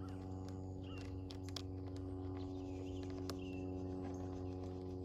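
A steady low hum of some motor or machine, with a few faint bird chirps and some light clicks about a second and a half in.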